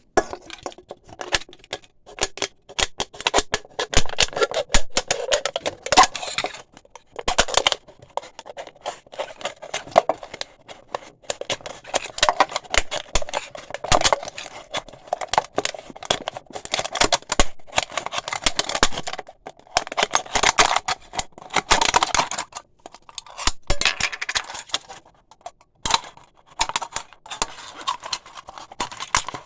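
Razor blade cutting through aluminium pop cans: irregular runs of sharp clicks and noisy cutting strokes lasting a second or two each, with short pauses between, a sound the uploader likens to nails on a chalkboard.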